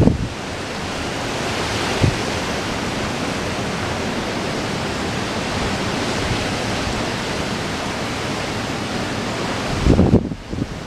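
Strong wind blowing steadily as a dense rushing hiss, buffeting the microphone with a low thump about two seconds in and a heavier blast near the end.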